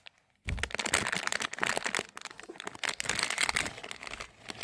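Plastic packaging crinkling and rustling in the hands as a blind-box figure's wrapper is opened, starting about half a second in.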